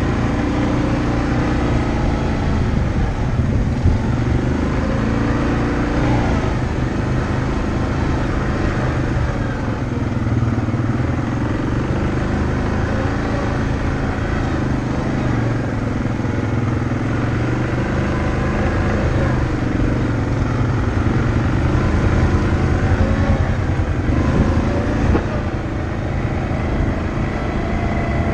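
ATV engine running under way, its pitch rising and falling again and again as the throttle changes.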